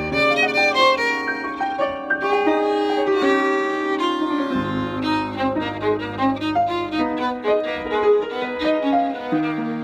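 Violin and upright piano duo playing a jazz piece: the violin bows a melody of quickly changing notes over piano chords, with low piano bass notes held from about halfway through.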